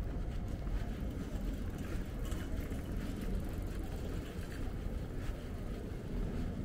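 Steady low rumble of outdoor city ambience, with wind buffeting the microphone.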